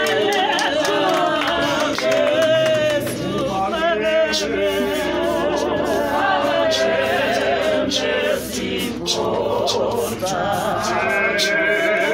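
Church congregation singing together unaccompanied, men's and women's voices in harmony, with sharp beats recurring throughout.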